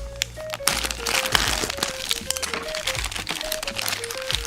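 Background music with a simple stepping melody of single notes, over the crinkling of plastic packaging and small clicks as tiny plastic toy pieces are handled.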